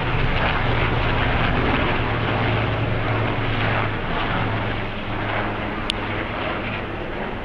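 Steady outdoor rumble with a low mechanical hum underneath, easing slightly over the last few seconds, and one sharp click about six seconds in.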